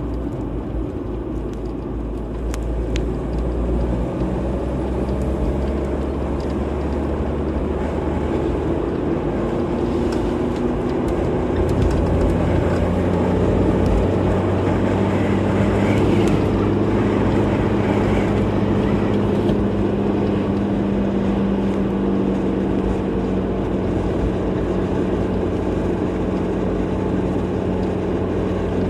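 Car driving steadily on the road: a constant low engine hum over tyre and road noise, getting a little louder about eleven seconds in.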